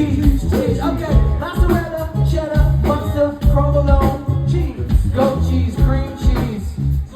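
Music with a sung vocal over a steady beat and a strong bass line.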